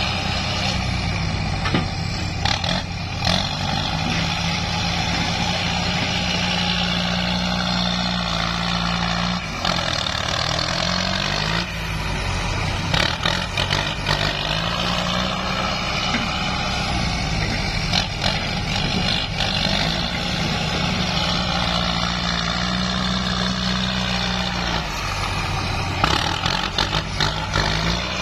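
Kubota M8540 tractor's four-cylinder diesel engine working under load as its front dozer blade pushes soil. The engine note sags and picks up again a third of the way in and near the end, with a few short knocks along the way.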